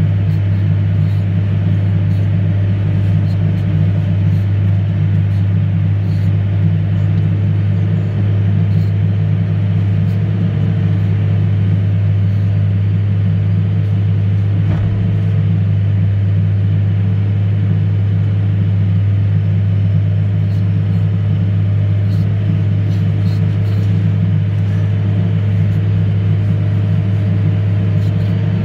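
Steady low drone of a farm vehicle's engine and drivetrain heard from inside the cab while driving, with a faint higher hum above it.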